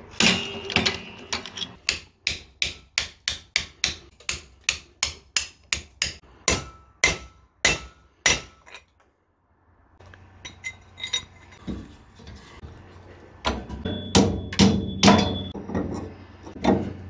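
Hand hammer striking a metal bracket clamped in a bench vise, in a steady run of sharp blows about three a second. After a short break come scattered metal clicks and a quick cluster of heavier knocks near the end.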